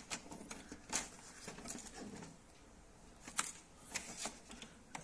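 Hands handling the plastic body of a new ink tank printer and its packing tape and insert. There are scattered, irregular light clicks, taps and rustles.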